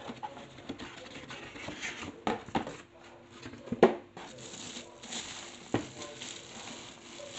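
Cardboard box and moulded paper-pulp packing inserts being handled and pulled out, with a few knocks, the loudest a little under four seconds in, then a plastic wrapping bag rustling as it is grabbed.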